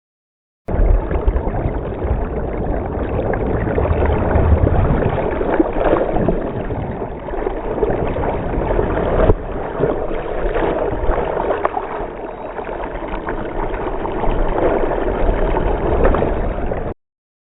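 Rushing, splashing sea water with a low rumble of wind on the microphone, as from a boat moving over the water. It starts abruptly about a second in and cuts off suddenly near the end.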